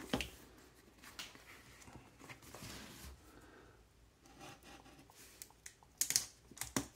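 Shrink-wrapped cardboard box being handled: faint rustling and crinkling of the plastic film, with a few sharper crackles about six seconds in.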